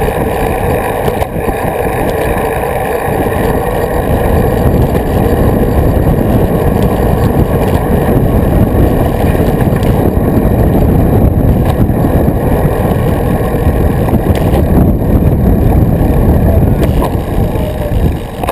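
Wind buffeting the microphone of a bike-mounted action camera while riding, heard as a steady low rumble of rushing noise that grows a little louder about four seconds in.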